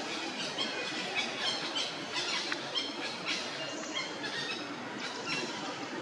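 Short high-pitched animal squeaks and chirps, several a second and busiest in the first half, over a steady noisy background.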